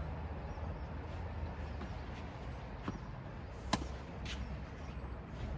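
Tennis ball being played in a rally: a few sharp pops of ball on racket strings and court, the loudest a little under four seconds in, over a steady low hum.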